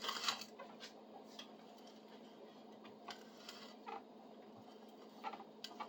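Faint, scattered clicks and light knocks, about eight spread unevenly over several seconds, of a hand drill bit with a wooden handle and a spruce board being handled just after drilling.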